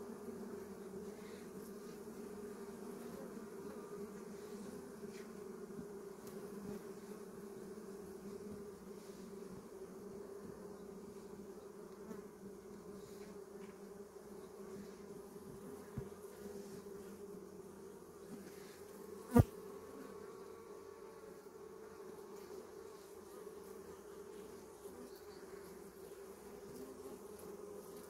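Honeybees buzzing around an open hive in a steady, even hum. One sharp knock about two-thirds of the way through.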